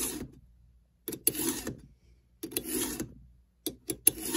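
A chainsaw file in a roller filing guide is pushed across the cutters of a Stihl MS290 chain, sharpening it. There are four rasping strokes about a second and a half apart, each about half a second long, with two short scrapes just before the last.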